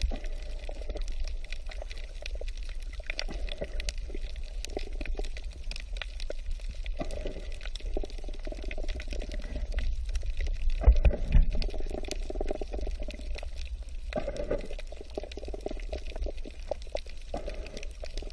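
Underwater sound picked up by a camera below the surface: a low rumble of moving water, with bursts of bubbling every few seconds and scattered faint clicks. The loudest moment is a low surge of water about eleven seconds in.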